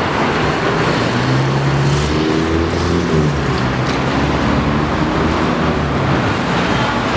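Steady city road traffic, with a vehicle engine humming low and steady through the middle for a few seconds.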